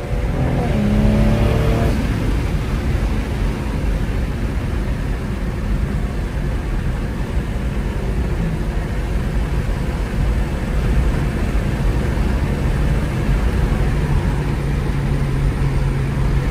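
BMW M340i's turbocharged inline-six running under steady road and tyre noise, heard from inside the cabin while driving. The engine note rises briefly in the first couple of seconds, then settles into a steady hum.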